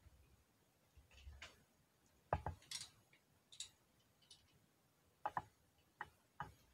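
Clicks and light scrapes of AR-15 trigger parts being handled and fitted into the lower receiver: a sharp double click about two and a half seconds in, a short scrape, then another double click a little after five seconds followed by two single clicks.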